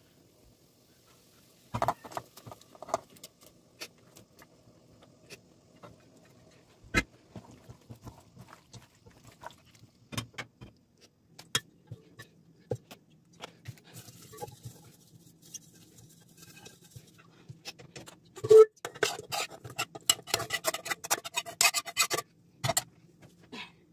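Aluminium cooking pots and utensils being handled: scattered clinks and knocks, then one loud metal knock with a short ring, followed by a few seconds of rapid scraping and tapping of a spoon against a pan as food is scraped out into a pot.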